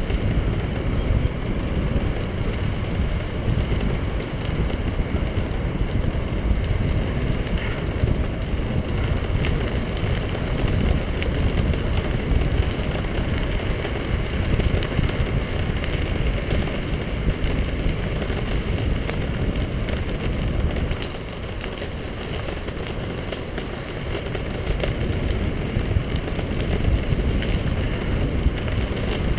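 Wind rushing over the microphone with tyres rolling over a gravel path, a steady rumbling noise with no engine tone; it eases for a few seconds past the middle.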